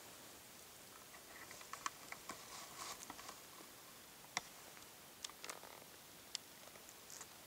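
Faint rustling and several sharp, isolated clicks, like small twigs snapping or handling noise.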